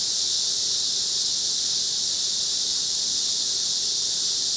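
Cicadas droning: a steady, unbroken high-pitched hiss of insect song with no change in level.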